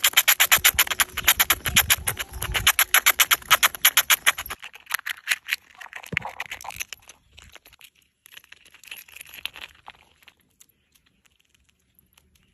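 A squirrel gnawing a walnut shell with its teeth: a fast, even run of scraping strokes, about ten a second, for the first four seconds or so. Then scattered cracks and crunches as the shell splits open and it nibbles the kernel, fading out.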